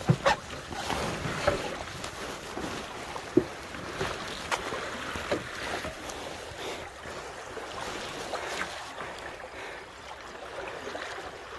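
A canoe coming ashore in shallow water on a stony beach: water sloshing around the hull, with occasional knocks and scrapes of the hull, paddle and gear against the stones.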